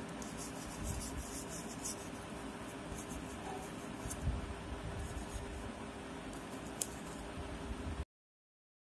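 Toothbrush bristles scrubbing a wet metal laptop heatsink, scratchy brushing strokes coming in short runs, with a knock about four seconds in and a sharp click near seven. The sound cuts off suddenly near the end.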